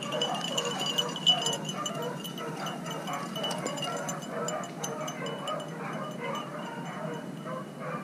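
A pack of beagles baying as they run a rabbit, many overlapping voices in a continuous chorus, with light metallic clinking over it.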